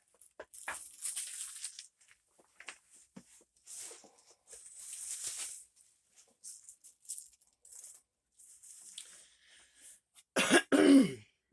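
Soft rustling of packaging with small clicks as items are handled, then two loud coughs near the end.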